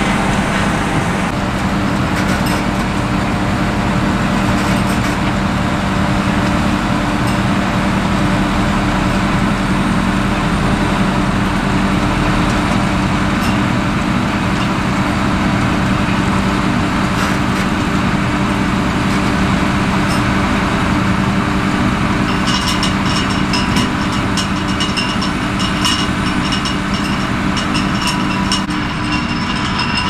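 Heavy potato-harvesting machinery running steadily with a strong low engine hum. About two-thirds of the way in, a high whine and a rapid ticking join the din.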